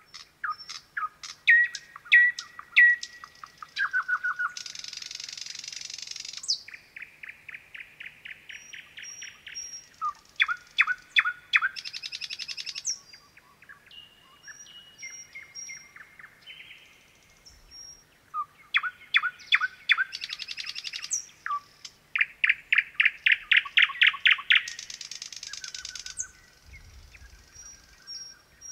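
Thrush nightingale singing. It sings loud phrases of sharp clicking notes, fast rattling runs of one repeated note, harsh buzzy stretches and thin high whistles. The song thins out to scattered notes for a few seconds in the middle before a second full burst.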